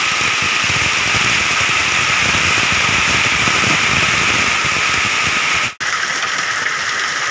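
Heavy hail and rain hammering on the house roof, heard from inside: a loud, dense, continuous clatter. It cuts out for an instant about six seconds in and resumes a little quieter.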